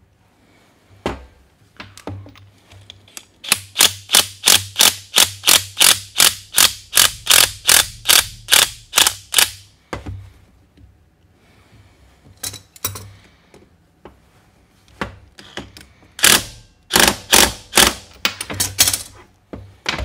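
Cordless impact wrench running a bolt down to fasten a cable lug, in a regular run of sharp strokes, about three or four a second, for about six seconds. Shorter clusters of strokes follow in the second half.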